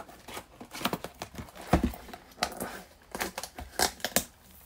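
A shrink-wrapped cardboard trading-card box being slit open with a blade and handled: irregular clicks and scrapes of plastic wrap and cardboard, with a thump a little under two seconds in.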